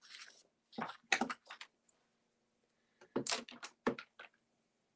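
Computer keyboard typed on in short bursts of clicks, about a second in and again after about three seconds, over a faint steady hum.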